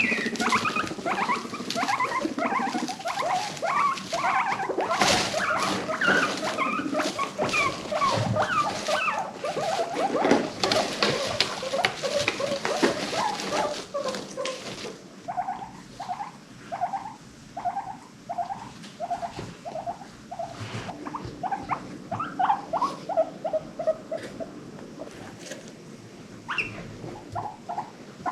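Guinea pigs squeaking and chirping, many short calls overlapping with clicks and pattering. About halfway through this settles into one animal repeating short rising squeaks, about three every two seconds, which gradually get softer.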